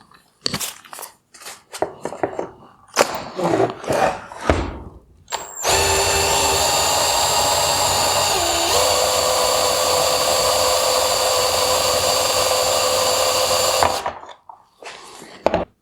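A few knocks and clicks from handling plastic parts, then a power drill runs steadily for about eight seconds, its pitch stepping once partway, turning the headlight adjuster to back out the screw holding the upper projector mount. It stops suddenly and the handling clicks return.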